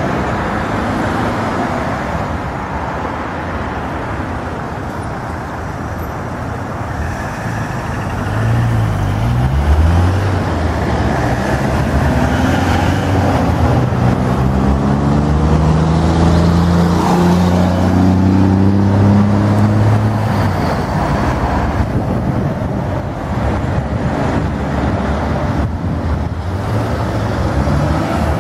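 Steady road traffic, with cars and vans passing on a multi-lane street. About a third of the way in, a truck's engine comes up close, its note climbing for several seconds as it accelerates past, and it drops away about two-thirds of the way through.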